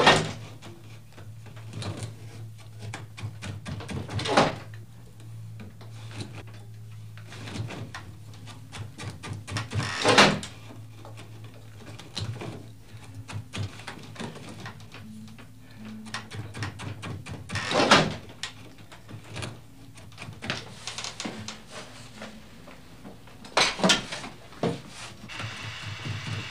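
Irregular wooden knocks and clatter from work at an upright tapestry loom: a few louder knocks spread through, with many small clicks between, over a steady low hum.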